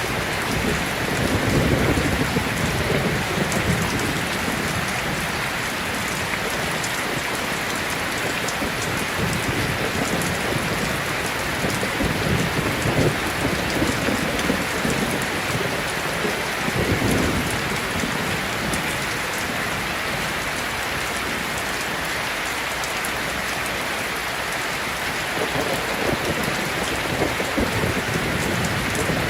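Steady rain pouring down, an even hiss of drops, with low rolling rumbles of distant thunder swelling about two seconds in, near the middle and near the end.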